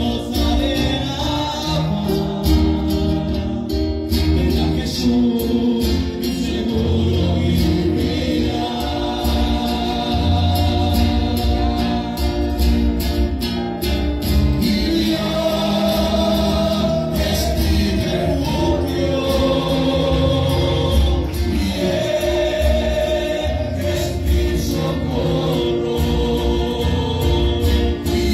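Live gospel worship song: a man sings into a microphone over a strummed acoustic guitar, amplified through the hall's PA, with other voices singing along.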